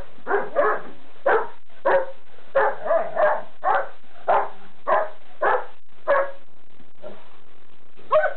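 Dogs barking in rough play between a Weimaraner and a Rhodesian Ridgeback puppy: a run of sharp barks, about two a second for six seconds, then a lull and one more bark near the end.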